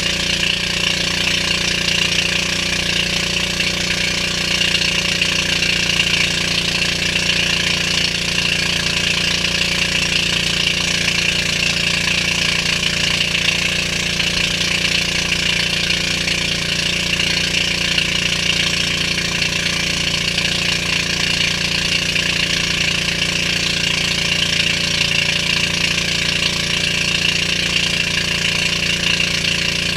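Outrigger boat's engine running steadily at cruising speed, loud and unchanging.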